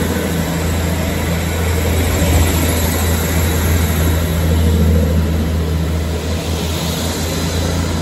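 Class 158 diesel multiple unit's underfloor diesel engines running with a steady low drone and rumble as the train moves along the platform.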